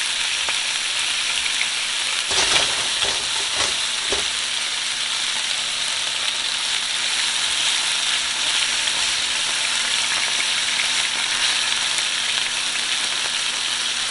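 Teriyaki-marinated tuna steaks searing in hot olive oil in a nonstick frying pan, sizzling steadily while only the outside is seared. A few short knocks in the pan about two to four seconds in.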